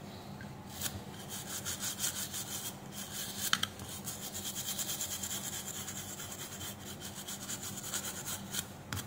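A toothbrush scrubbing a circuit board in rapid back-and-forth strokes, cleaning the freshly soldered IC pins.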